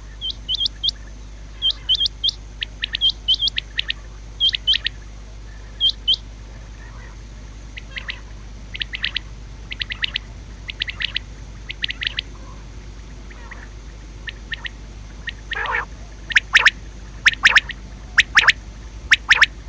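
Common quail calling: short, sharp notes in quick clusters of two to four, repeated every second or so. The notes grow louder near the end.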